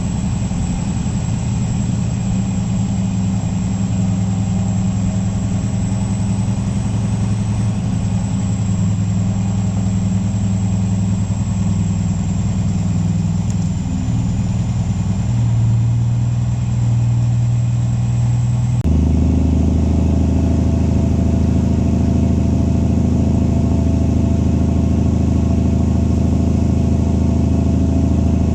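Semi truck's diesel engine running steadily, a low drone that shifts in pitch about 15 seconds in and changes abruptly to a louder, different drone about 19 seconds in.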